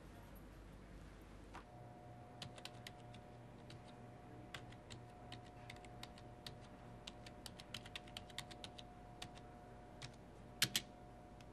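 Faint, irregular clicking of keys being typed on a computer keyboard, ending in two louder clicks close together, over a steady electrical hum with a thin high whine that starts about a second and a half in.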